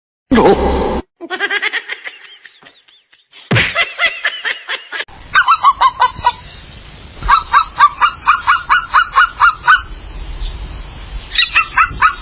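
A string of short animal-sound clips cut together. The longest, from about five seconds in, is a bird honking in quick runs of repeated calls, about three to four a second, each call dropping in pitch.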